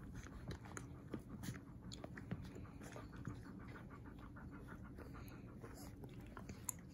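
Four-week-old husky puppies suckling from their mother, with faint, irregular wet smacking clicks, while the mother husky pants.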